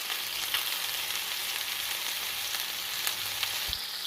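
Chicken thighs frying in a pan, a steady sizzle with scattered small pops as the skin browns and the juices cook off.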